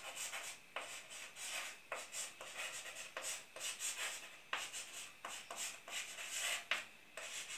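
Chalk writing on a blackboard: a quiet run of short, irregular scratching strokes with light taps as the letters are formed.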